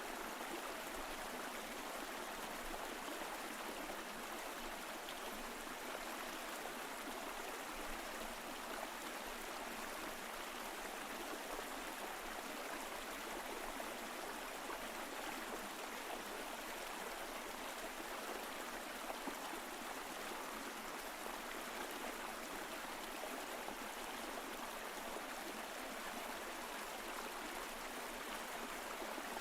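Mountain stream flowing steadily over rocks, a constant rushing babble of water.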